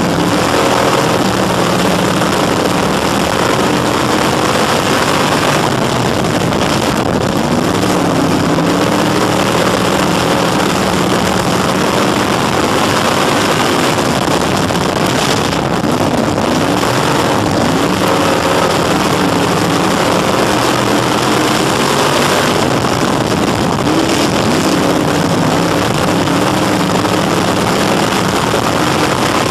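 Crate Sportsman dirt-track race car's V8 at racing speed, heard from inside the cockpit. The engine note drops and climbs again every several seconds as the driver lifts for the turns and gets back on the throttle down the straights.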